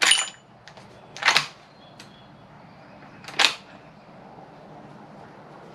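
Bolt of a Ruger American .300 Win Mag bolt-action rifle being worked between shots: three sharp metallic clacks, one at the start, one about a second in and one about three and a half seconds in, the first with a brief high ring.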